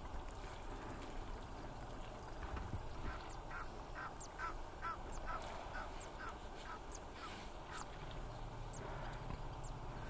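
A bird calling in a quick run of short, repeated notes, about three a second, for some five seconds in the middle, over a steady low background rumble.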